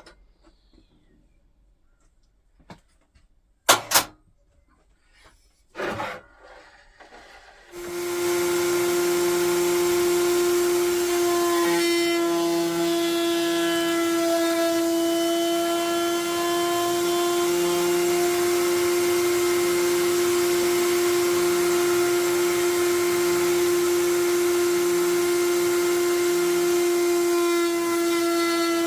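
A couple of sharp knocks, then a table-mounted router fitted with a chamfer bit switches on about eight seconds in and runs at a steady pitch, loud and unchanging.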